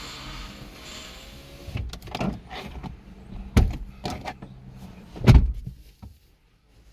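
A steady hiss, then a string of knocks and thumps from handling inside a pickup truck's cab, the loudest about three and a half and five and a half seconds in.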